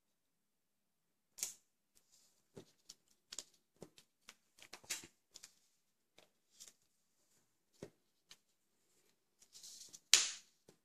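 Strips of thin paper being handled and folded by hand: a scattered series of short rustles and crinkles, with a louder rustle near the end.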